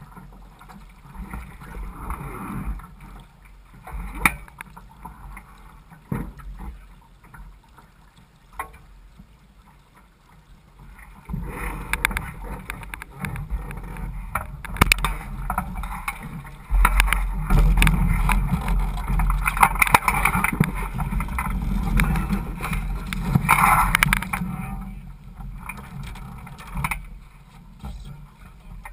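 Water lapping and gurgling against the hull of a Laser 4000 sailing dinghy, with a few sharp knocks in the first half. From about twelve seconds in the sloshing grows louder and heavier, and about three quarters through there is a burst of splashing as a crew member stands in the shallows beside the boat.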